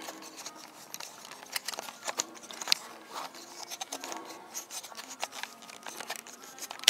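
Handling noise from a hand-held camera being carried: irregular rubbing, scraping and sharp little clicks against the microphone.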